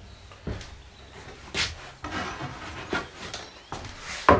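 Wood being handled: a few light knocks and a brief rub or scrape, then a louder knock near the end.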